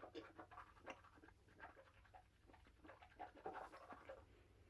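Near silence with faint, scattered mouth noises and breathing from a person chewing bitter chocolate.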